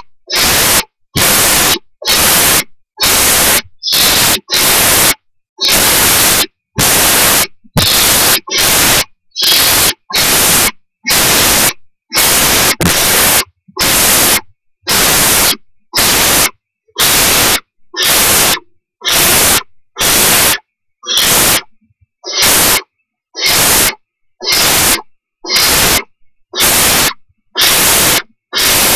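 Barn owl owlets giving rhythmic harsh hissing food-begging calls, the so-called snoring: one hiss about every three-quarters of a second, each about half a second long.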